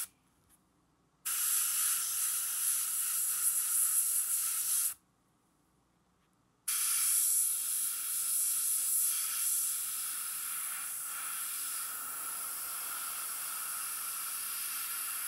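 An airbrush spraying paint onto a crankbait lure: a steady hiss of air and paint in two spells, the first from about a second in to about five seconds, the second starting about seven seconds in and running on.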